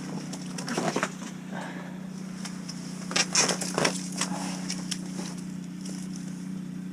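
Scattered crackles and knocks of handling, in two clusters about a second in and around the middle, over a steady low hum.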